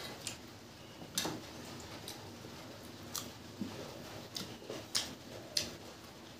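Close-up eating sounds of a person chewing a mouthful of rice and egg omelette curry: irregular wet clicks and lip smacks, the loudest about a second in.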